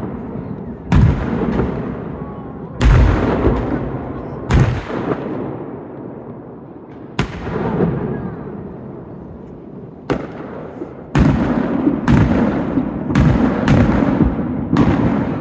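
Fireworks shells bursting overhead: about ten sharp bangs, each trailing off in a long echo, coming more quickly near the end.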